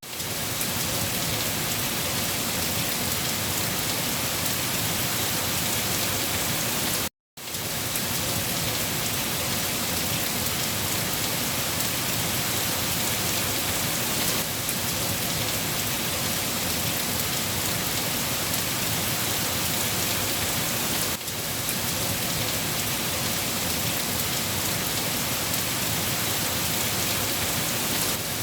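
Steady, dense rainfall, an even hiss of drops with no let-up. The sound cuts out completely for a fraction of a second about seven seconds in, then resumes as before.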